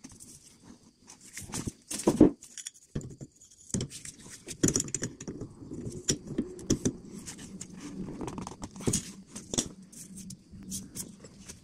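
Irregular metallic clicks and clanks of large slip-joint pliers gripping and turning a new inner tie rod as it is screwed into the steering rack, with a sharper knock about two seconds in.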